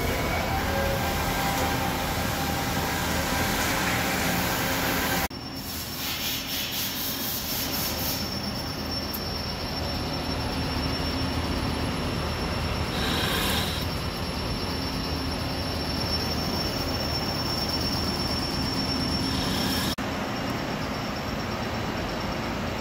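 A CNC vertical turret lathe's driven tool spindle chamfering bolt holes in a machined steel ring: a steady machine hum with high, steady whining tones from the spindle and cutter on the metal. The sound changes abruptly about five seconds in and again near the end.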